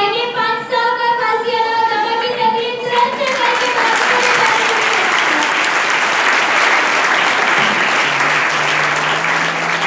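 A woman's high voice, amplified through a microphone, holds long sung notes, then about three seconds in a crowd breaks into sustained applause that carries on to the end.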